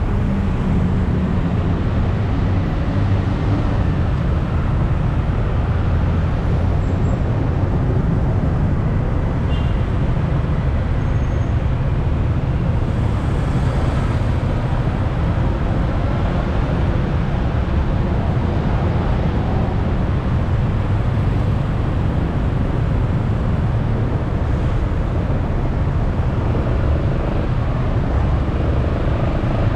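Motorcycle taxi riding through city traffic: a steady low rumble of engine, tyre and wind noise that keeps an even level throughout.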